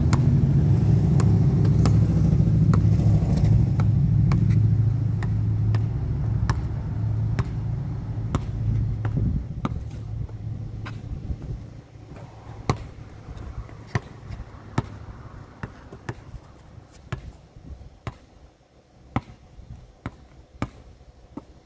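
A motor vehicle's engine rumble, loud at first, fades away over about ten seconds. Sharp taps repeat at a steady pace, a little more than one a second, throughout.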